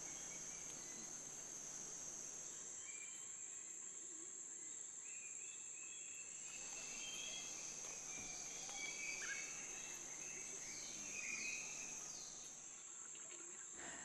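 Rainforest ambience: a steady, high-pitched drone of insects, with faint, scattered bird calls coming and going through the middle, a few of them falling in pitch.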